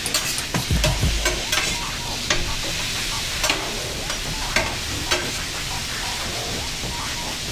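Thin slices of doner meat sizzling on a stainless steel flat-top griddle, with a metal spatula clicking and scraping on the steel as the meat is spread and chopped. The clicks come thick over the first two seconds, with a few dull knocks, then about once a second over a steady hiss.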